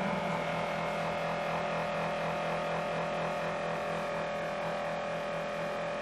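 Steady mechanical drone from machinery running at the neighbours' house renovation, a constant hum holding several fixed pitches.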